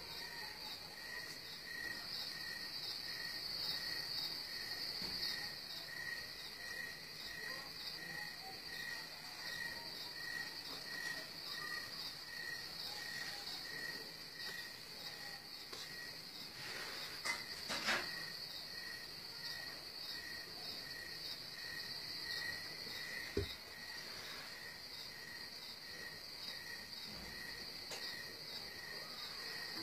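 Steady high-pitched insect chirping, like crickets, with a fainter chirp pulsing at an even pace about every two-thirds of a second. A couple of sharp knocks come about halfway through, and a dull thump a few seconds later.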